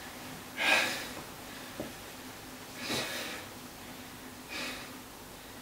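A man breathing hard through his open mouth, catching his breath after an abdominal exercise: three heavy breaths about two seconds apart, the first the loudest.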